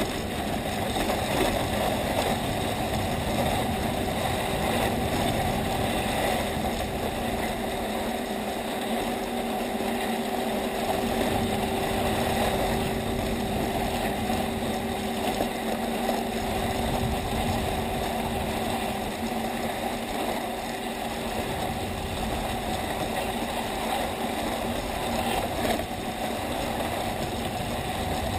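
Skis sliding steadily over groomed snow while towed up a T-bar lift, a continuous scraping hiss, with a faint steady hum through most of it.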